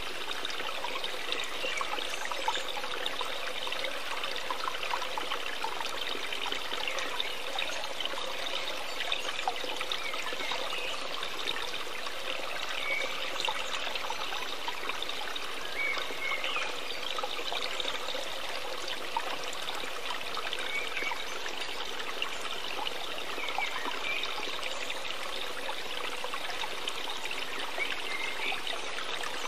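Steady sound of a trickling stream of water, with faint short chirps every few seconds.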